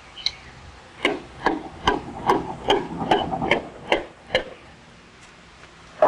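A run of about ten sharp metallic taps, irregular at roughly two to three a second, from about one second to four and a half seconds in: a hand tool knocking on a piston and the cast-iron block of a Hyundai D6DA engine as the piston is fitted into its cylinder bore.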